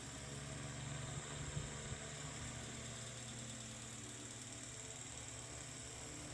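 Circa 1910 Eck Tigre Hurricane ball-motor oscillating fan running with a steady electric-motor hum. A few light knocks come between about one and two seconds in.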